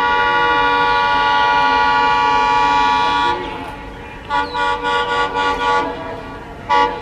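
ALCo WDM-3A diesel locomotive's horn: one long steady blast that stops about three seconds in, then a quick run of about six short toots and one more short toot near the end.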